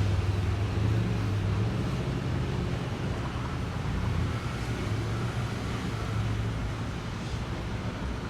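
Motor vehicle noise: a steady low engine hum with road noise.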